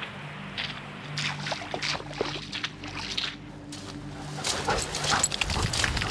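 Sounds from a German Shepherd dog over a low, steady drone that fades out about two thirds of the way in. Near the end, louder scuffing steps and handling noise come in as the walk moves over wet moorland grass.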